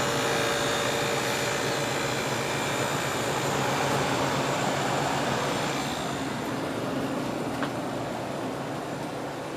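Late-1960s Sears Coldspot 6,000 BTU window air conditioner running just after start-up: a steady fan rush with the hum of its compressor. A faint click comes near the end.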